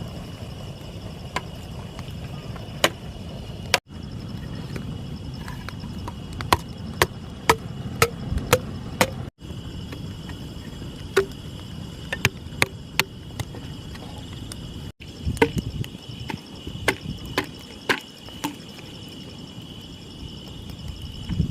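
Crickets chirring steadily, with a low rumble of wind on the microphone, and a series of sharp knocks, several coming in quick runs of about two a second.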